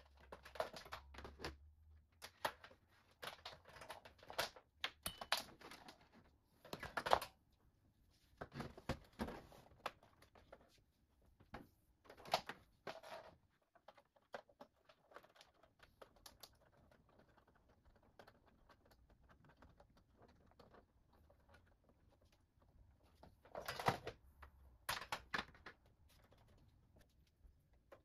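Cable plugs being handled and pushed into the sockets of a desktop tower and a monitor: irregular plastic clicks and knocks in bursts, quieter in the middle, with another cluster a few seconds before the end.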